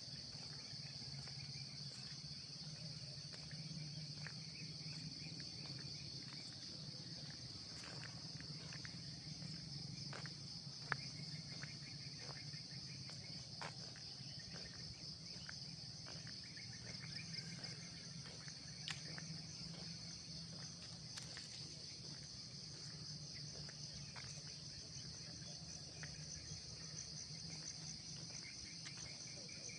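A steady chorus of insects, a continuous high trilling with a weaker lower trill coming and going, over a low steady hum and a few faint scattered clicks.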